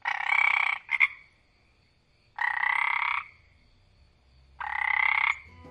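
A frog croaking three times, each croak lasting about three-quarters of a second, spaced about two seconds apart.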